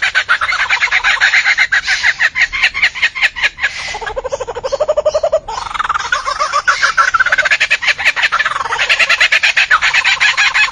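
Albert's lyrebird calling: a long, loud run of rapid, rattling pulsed notes, dropping lower and rising in pitch partway through before returning to the higher rattle.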